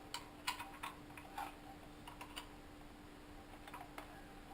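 Faint, irregular metallic clicks and taps as a screwdriver and the blade wrench are handled against a circular saw's blade and arbor bolt, with a faint steady hum underneath.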